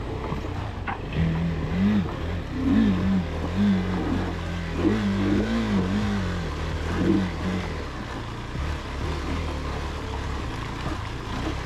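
Single-cylinder adventure motorcycle engine running on a rough trail, the throttle blipped again and again from about a second in until past the middle, the engine note rising and falling with each blip before settling back to a steady run.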